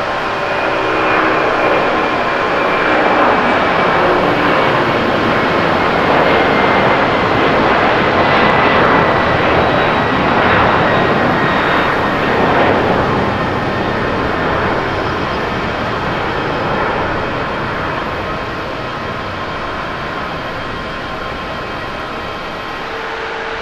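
Boeing 767-300ER twin-jet engines at takeoff power as the airliner lifts off and climbs away. The jet roar carries a few whining tones that slowly fall in pitch. It grows loudest about halfway through, then fades as the plane recedes.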